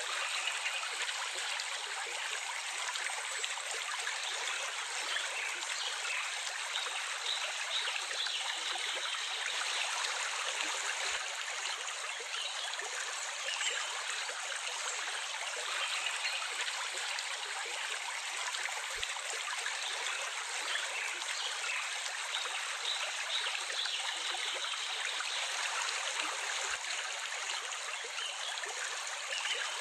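Running water of a small stream, flowing steadily with a light trickle.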